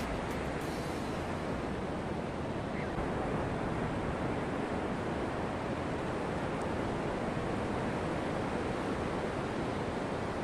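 Steady rush of ocean surf breaking on a sandy beach, with no distinct events.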